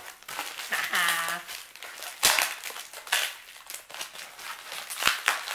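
Plastic packaging bag crinkling as it is handled and pulled open, with sharp rustles about two, three and five seconds in.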